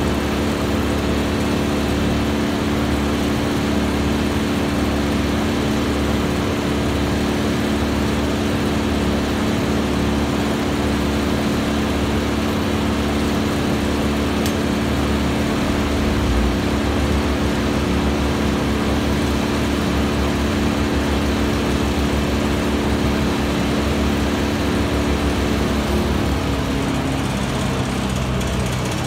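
Tow-behind wood chipper's engine running steadily; near the end its note falls as the engine slows.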